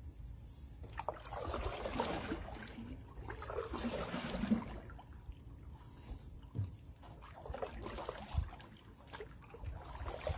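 Canoe paddle strokes: the blade dipping and pulling through the water, with water trickling and splashing off it. The strongest swishing comes in the first half, with smaller, quieter strokes after.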